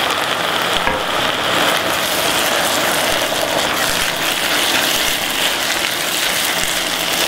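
Minced meat and diced vegetables sizzling steadily in a pot, stirred with a wooden spoon, as a splash of red wine cooks off and reduces.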